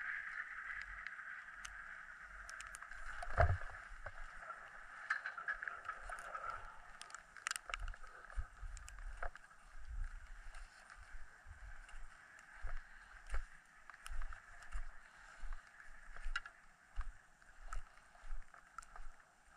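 Skis sliding over snow, with a single thump about three and a half seconds in. From about halfway on, a regular rhythm of pushing strokes, about three every two seconds, as the skier propels along a flat stretch of trail.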